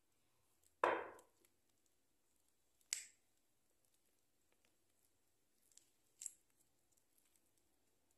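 Silicone spatula folding whipped cake batter into cocoa paste on a plate: a soft knock about a second in, then a few light, sharp clicks as the spatula works against the plate. The stretches between are quiet.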